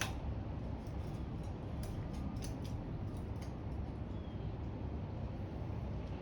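A few small sharp clicks of tools and metal parts being handled during hand work on a generator's fuel line, over a steady low rumble.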